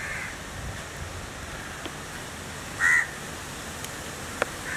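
A crow cawing: a short call at the start and a louder one about three seconds in, over a steady low hiss, with a brief tick near the end.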